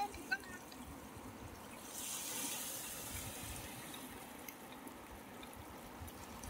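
Water washing and trickling, with a louder swell of wash about two seconds in and a few faint drip-like ticks.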